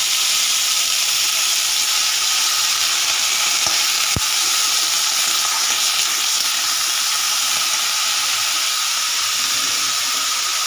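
Chopped radish greens sizzling steadily in hot oil in a kadai as a metal spatula stirs them, with two light knocks of the spatula about four seconds in.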